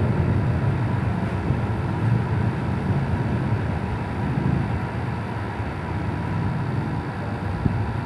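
Carrier 1/4 hp air conditioner running steadily with a low hum and an even rushing noise.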